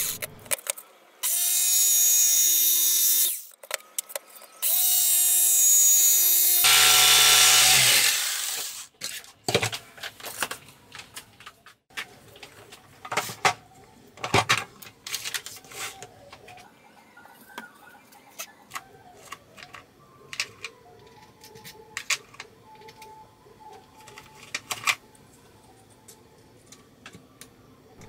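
Electric jigsaw cutting a panel: the motor runs in two steady spells, winding up at the start of the second, and the blade chews through the material for a couple of seconds after it. Then scattered light clicks and knocks follow as tools are handled on the bench.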